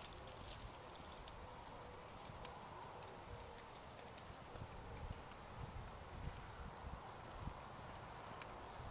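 Faint hoofbeats of an American Quarter Horse gelding loping on the soft dirt of a practice pen, heard as scattered light thuds and ticks.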